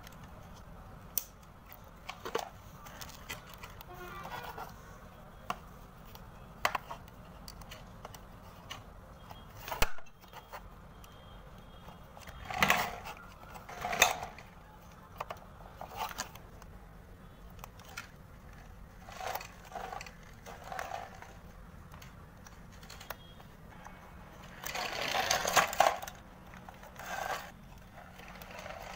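Plastic clicks, knocks and scrapes of a toy remote-control ATV being handled on a wooden table, with a few short rattling bursts, the longest about 25 seconds in.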